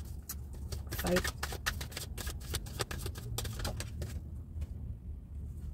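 A deck of tarot cards being shuffled by hand: a quick, irregular run of soft card slaps and flicks that stops about four seconds in.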